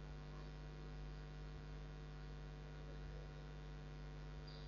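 Faint, steady electrical mains hum with a stack of overtones, unchanging throughout.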